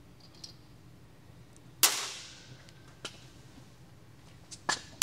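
Two sharp metallic cracks, one about two seconds in and another near the end, each ringing away over about a second, with a small click between them: rusted cylinder-head nuts on a 1275cc BMC A-Series engine snapping loose under a breaker bar.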